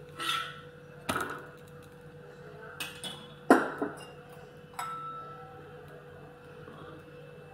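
Metal spatula knocking and scraping on an iron dosa tawa while a dosa is folded over: about five sharp clicks and scrapes, the loudest about halfway through.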